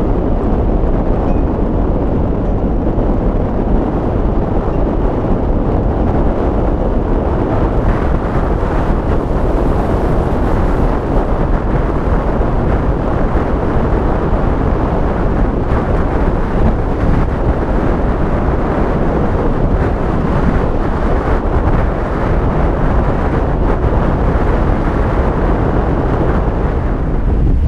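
Strong mountain wind buffeting the microphone: a loud, steady low rumble with rushing noise.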